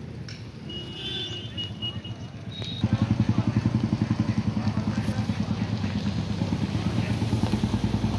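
Motorcycle engine running close by, coming in about three seconds in as a fast, even, low pulsing that holds steady.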